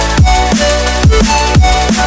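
Electronic background music with a steady beat: deep kick drums that slide down in pitch about twice a second under sustained synth notes.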